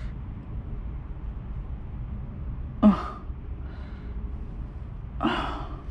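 A man's short grunt, falling in pitch, about three seconds in and a breathy sigh near the end, over a steady low rumble.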